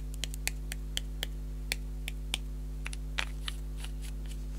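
Light, irregular clicks and taps, about a dozen sharp ticks spaced unevenly, from handling and tapping a small plastic pot of shimmer powder.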